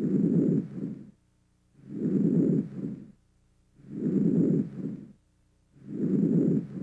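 Vesicular breath sounds heard through a stethoscope: soft, low-pitched breathing noise, a normal finding over most of the lung fields. Each breath repeats about every two seconds, with a long inspiratory sound trailing into a brief fading expiratory sound, then a silent pause.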